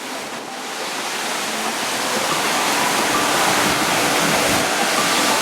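Strong storm wind and a rough sea breaking on the shore, a steady rushing noise that swells louder over the first few seconds.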